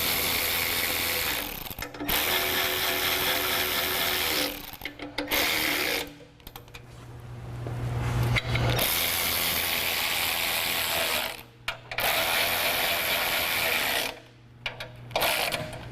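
A power tool, a powered ratchet or wrench, runs in several bursts of a few seconds with short pauses between them, tightening the bolts of the bumper's auxiliary brackets.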